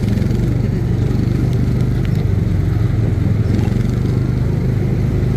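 The small gasoline engine of a Tomorrowland Speedway ride car runs steadily while it is being driven around the track.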